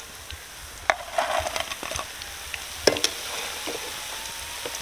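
Crumb-coated fish sizzling in hot oil in a metal wok while a wire mesh skimmer scoops the pieces out. The skimmer clinks sharply against the pan twice, about a second in and again near three seconds.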